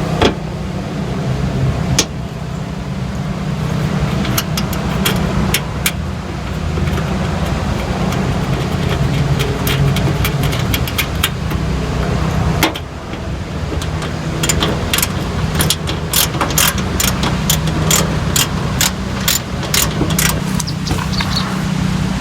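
Sharp metallic clicks of a socket wrench and box wrench running nuts onto the fender flare's studs. They come more often and more regularly in the second half. Under them runs a steady low drone.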